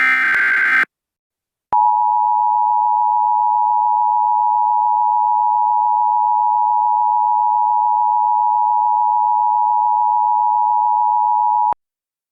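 A short, buzzy, warbling Emergency Alert System SAME header data burst ends within the first second. After a brief gap, the EAS attention signal follows: a steady two-tone alarm that sounds for about ten seconds and cuts off sharply near the end.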